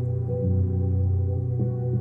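Ambient background music: slow, sustained low tones that shift in pitch every second or so.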